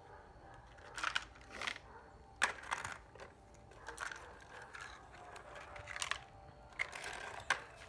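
Small stones crunching and clattering against a hand-worked plastic toy excavator bucket as it scoops through a gravel pile and tips the stones into a plastic toy dump truck: several short, separate scrapes and clacks.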